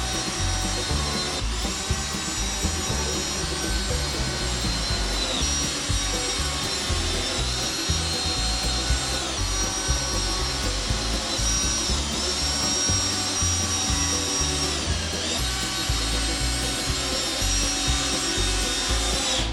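A handheld power tool's motor running in wood. Its whine drops and climbs back up every few seconds, over a heavy rumble from the work.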